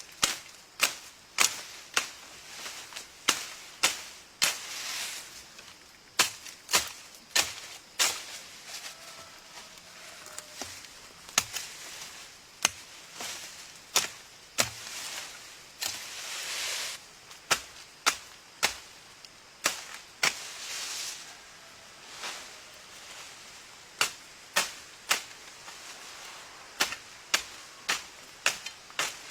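Repeated sharp chopping strikes of a blade into wood, coming roughly once a second with irregular pauses and some quick doubles. Brief rustling of branches and leaves sounds between some of the strokes.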